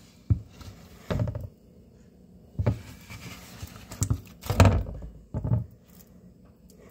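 A hand pushing into and squeezing oobleck, a cornstarch-and-water mix, in a plastic bowl in a steel sink. It makes a series of about six dull thunks and squelches spread over a few seconds.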